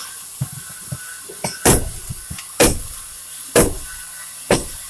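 Sledgehammer blows striking wooden stair treads to break them out, four heavy strikes about a second apart with a few lighter knocks between.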